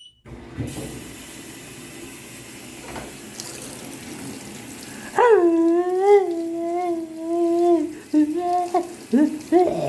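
Washing machine drum filling with water, a steady rushing hiss. About five seconds in a loud, wavering howl starts over it, held for about three seconds, then breaks into shorter howling cries near the end.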